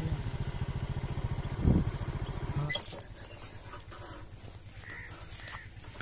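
Motorcycle engine idling with an even beat, briefly louder just before two seconds in, then cut off suddenly a little under three seconds in. After it, a few short bird calls and light clicks.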